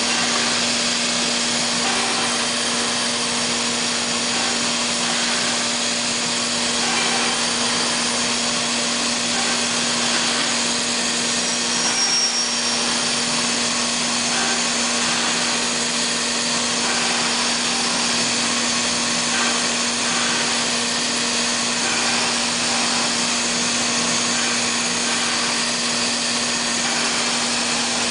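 CNC wood machining center running steadily while routing a solid wood door: a continuous hiss of the spindle, cutter and dust extraction over a steady low hum.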